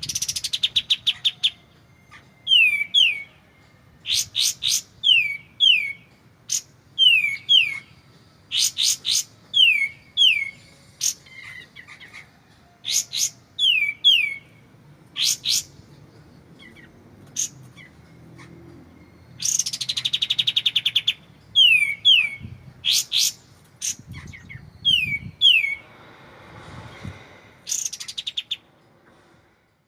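Kapas tembak singing: loud, clear phrases of rapid trills and quick down-slurred whistled notes, repeated in short bouts with brief pauses between them.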